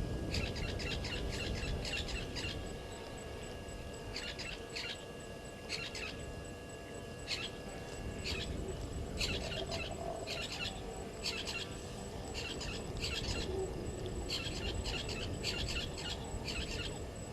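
Wild birds chirping at a waterhole in repeated bursts of quick, high calls, one burst every second or so, over a steady low background rumble.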